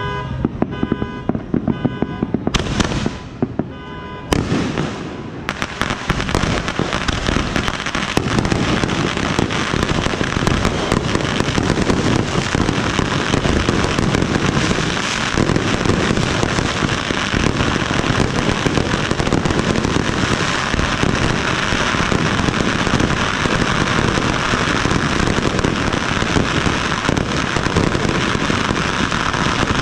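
Fireworks going off close overhead: a couple of single loud bursts, then, about five seconds in, a dense, unbroken barrage of bangs and crackling aerial shells.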